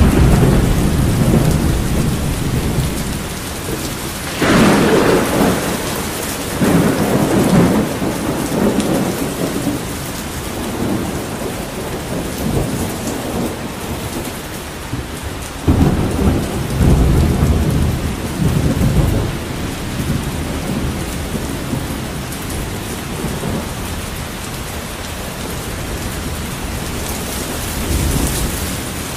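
Thunderstorm: steady heavy rain with rolling thunder. A sudden clap about four seconds in rumbles on for a few seconds, and another sharp crack around the middle is followed by several seconds of low rumbling.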